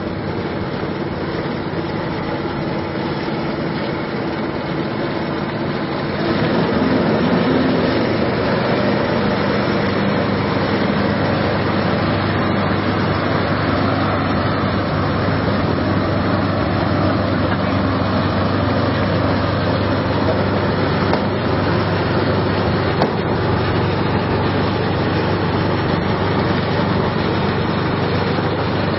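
Small petrol engine of an amphibious rice thresher running steadily as the machine drives itself through a flooded paddy on paddle wheels, with water churning and splashing. It gets a little louder about six seconds in.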